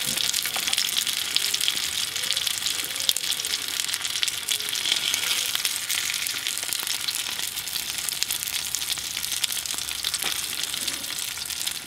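Burger patties sizzling and crackling steadily in a hot pan over a gas camping stove.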